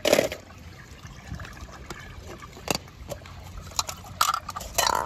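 Water splashing as a die-cast toy car is dipped into a plastic bowl of water, then light water sounds and a few sharp taps and clicks from handling wet plastic cups, several of them close together near the end.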